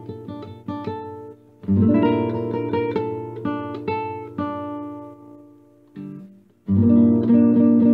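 Background acoustic guitar music with plucked notes and strummed chords. It fades almost away about five seconds in, then comes back louder with full strumming about seven seconds in.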